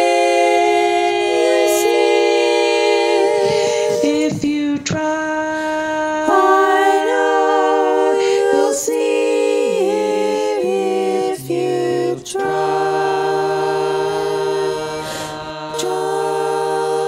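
Women's barbershop quartet singing a tag a cappella in four-part close harmony, moving through sustained chords with a few short breaks, then settling onto a long held chord over a steady low bass note in the second half.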